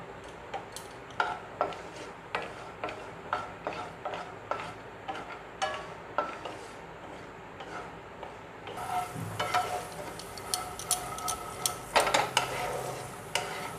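A spatula stirring and scraping peanuts around a non-stick frying pan, a short scrape or tap roughly every half second, over a light sizzle of the oil as the nuts fry. The strokes come faster and louder about two-thirds of the way through.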